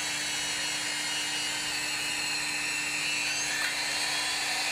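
Hougen HMD 925 magnetic drill running under power feed, its annular cutter boring down through a steel I-beam: a steady motor hum and whine over the noise of cutting.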